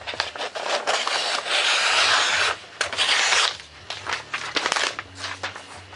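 Foam board sheets being handled and dragged, rubbing and scraping, with a long rasping rub in the middle and a shorter one just after, among small taps and knocks.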